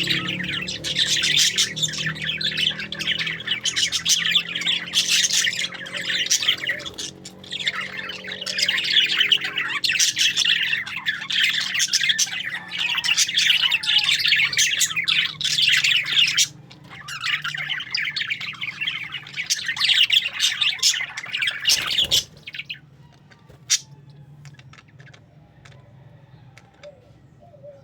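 A flock of parakeets chirping and squawking continuously in a dense, loud chatter. About three-quarters of the way through it cuts off suddenly, leaving only a few faint chirps.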